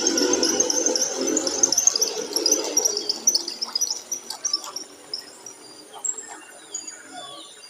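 Birds calling: a dense chattering chorus that fades out after about three seconds, followed by scattered single calls with short downward-sliding notes.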